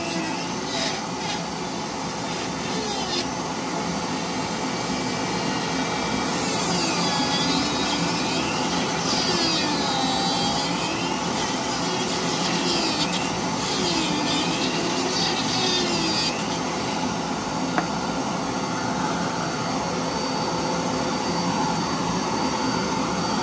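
Apex Forge rotary tool, set to speed 6, running with a carving burr grinding into hard cedar. Its whine dips in pitch and recovers again and again through the middle stretch as the burr is pressed into the wood.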